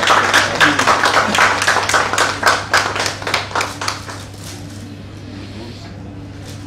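Audience applauding, the clapping dying away about four seconds in to leave a steady low room hum.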